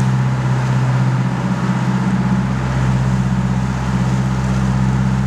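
A sportfishing boat's engine running with a steady low drone, with wind and water rushing over it.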